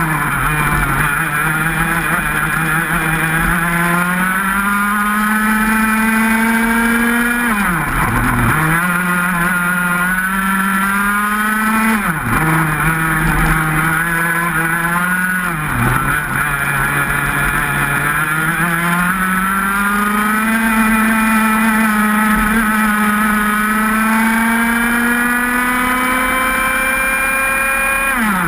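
125 cc two-stroke racing kart engine under full throttle, its note climbing steadily as the kart accelerates and dropping sharply when the driver lifts for a corner, three times in the first half. A long climb in revs fills the second half.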